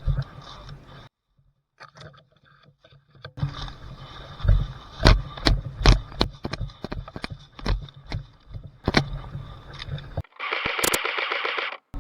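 A run of sharp knocks and clacks, uneven and several a second, over rustling, then a hiss lasting about a second and a half near the end.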